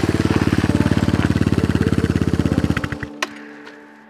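Suzuki DR350 single-cylinder four-stroke dual-sport motorcycle riding by at steady speed, its exhaust pulses even and rapid, fading a little before cutting off about three seconds in. A faint steady hum and a single click follow.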